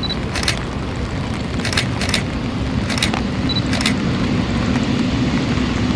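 Jet airliner engines: a steady rumble with a low hum that slowly grows louder, with several short crackles over it.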